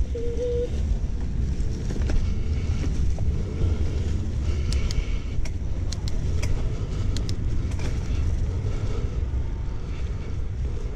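Mountain bike rolling along a leaf-covered dirt singletrack: a steady low rumble of tyres on the trail and wind on the handlebar camera, with a scattered few sharp clicks and rattles from the bike around the middle.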